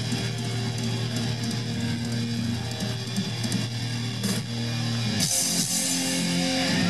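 Heavy-metal band playing live: distorted electric guitar and bass hold a low sustained note over the drums. About five seconds in, the held note breaks off and a wash of crashing cymbals takes over.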